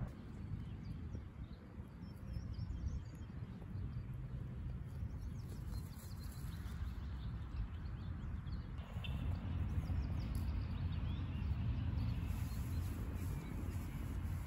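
Outdoor ambience: a steady low rumble with faint scattered rustles and ticks, growing a little louder in the second half.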